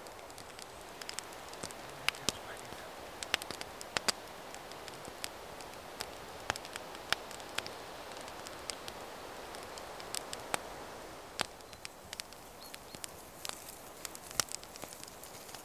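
Small wood campfire crackling: irregular sharp pops and snaps over a steady soft hiss.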